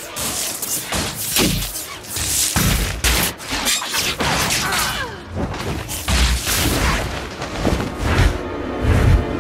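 Film sound effects of a magical wand duel: flames whooshing through the air and a run of heavy booming impacts as spells strike, with the film score beneath.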